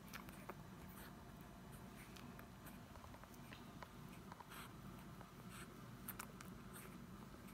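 Faint, irregular wet clicks and smacks of a four-day-old dachshund puppy suckling at its mother's teat, over a quiet room hum.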